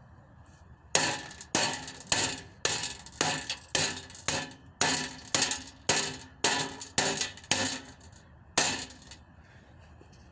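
Repeated clanging blows on the metal parts of a box fan being smashed: about fourteen strikes, roughly two a second, each with a brief metallic ring, the last one landing alone after a short pause.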